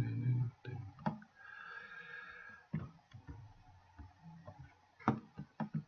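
Scattered computer mouse clicks, with several close together near the end, picked up by the desk microphone. A short low hum from a man's voice comes right at the start.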